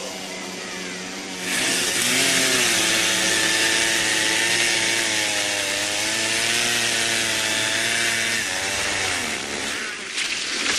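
Chainsaw cutting into a large tree trunk, its engine note wavering slightly under load. It starts about a second and a half in and fades out near the end.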